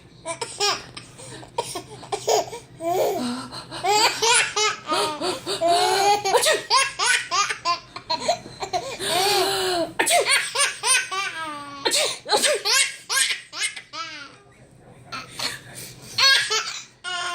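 A young child laughing in repeated fits of giggles, set off by his mother's sneezing, with a few sharp sudden bursts in between.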